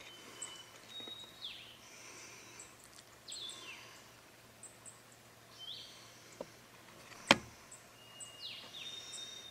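Songbirds calling: several high whistled notes and quick falling calls, over a faint steady low hum. One sharp knock about seven seconds in is the loudest sound.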